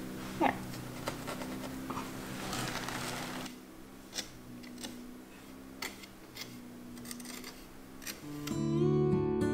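Scattered light clicks and taps over a faint steady hum, then strummed acoustic guitar music starting near the end.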